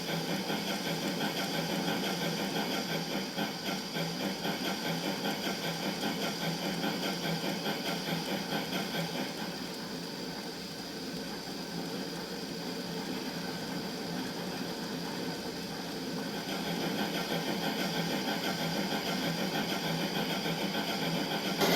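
Model-railway sound box playing a steam locomotive's running sound, a rhythmic chuffing, through a small speaker; it dips a little in level for a few seconds near the middle.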